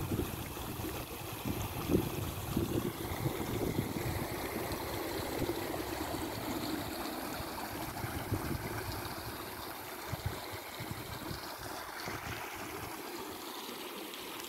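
Shallow rocky stream flowing and trickling over stones. Irregular low bumps and rumbles sound over the water for the first twelve seconds or so, then die away.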